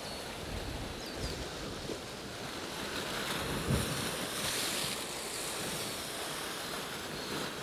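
Sea surf washing and breaking against the rocks of a shoreline cliff, with wind on the microphone and one brief louder low thump about halfway through.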